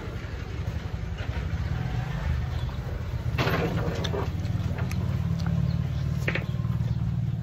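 An engine or motor running steadily, a low pulsing hum, with a short burst of noise about three and a half seconds in.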